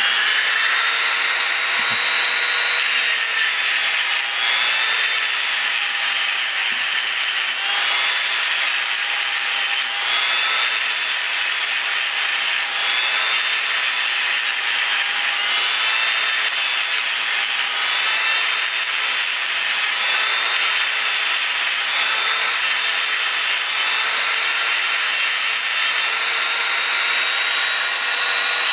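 A Dremel rotary tool with a small grinding stone runs steadily, whining at a high pitch while it grinds down the heads of the old rivets on a tractor brake shoe, so the rivets can be driven out and the worn lining removed.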